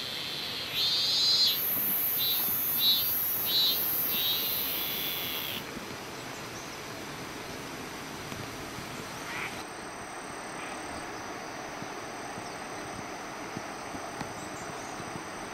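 Cicadas shrilling in the trees: a high steady buzz swelling into a pulsing call, about one and a half pulses a second, over a thinner, even higher shrill. The sound cuts off suddenly about five and a half seconds in, leaving a steady faint outdoor hiss.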